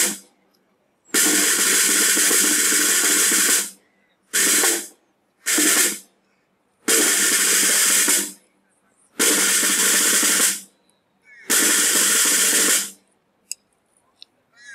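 Military band's snare drum playing a series of rolls, each starting and stopping sharply: a long roll, two short ones, then three long ones.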